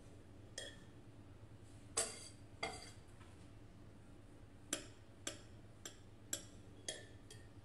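A knife clinking and tapping against a cake stand while a cake is sliced: about nine short, sharp clinks at irregular intervals, each with a brief ring.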